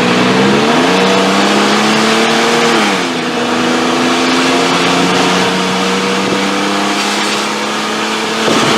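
2009 Nissan Frontier's engine revving up under acceleration while driving. It holds a steady pitch, drops lower about three seconds in, then runs steadily with a slight rise near the end. Its exhaust is a little loud because the oxygen sensor has been removed, leaving the port open to vent back pressure from a clogged catalytic converter.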